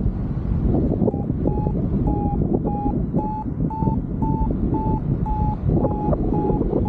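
Paragliding variometer beeping in short, even tones about twice a second, its pitch drifting slightly: the climb signal, telling the pilot the wing is rising in lift. Wind rushing on the microphone throughout.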